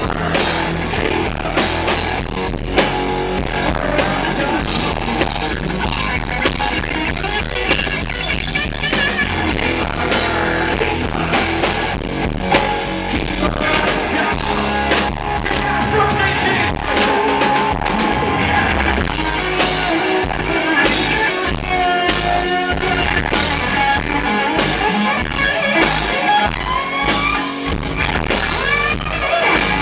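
Loud live rock band with distorted electric guitars, bass and drums, the recording's low end distorting on the heavy kick drum. In the second half an electric guitar lead line with wavering, bent notes comes to the fore.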